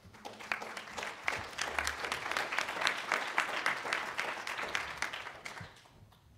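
Audience applauding, a dense patter of many hands clapping that builds up quickly, holds, and fades out over the last second or so.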